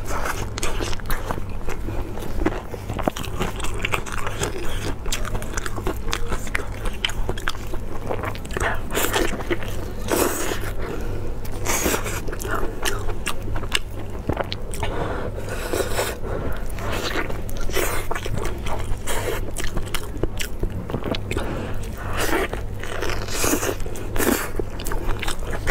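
Close-miked eating: a person biting and chewing roasted meat with wet, smacking mouth sounds and crunchy crackles, and the crust tearing under the hands. A steady low hum runs underneath.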